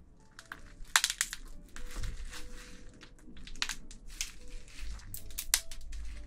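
Spicy marinated raw crab (yangnyeom gejang) being pulled apart by gloved hands: a run of sharp shell cracks and crunches, the loudest about a second in.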